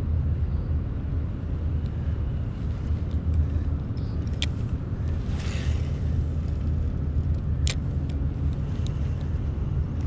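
Steady low rumble, with a few sharp clicks from handling a spinning rod and reel, the clearest about four and a half and about seven and a half seconds in.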